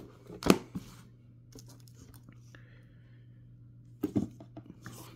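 Handling noise: a few sharp knocks and thunks as the plastic-wrapped diecast model airliner is moved about on a wooden table, the loudest about half a second in and another cluster about four seconds in. A faint steady low hum runs underneath.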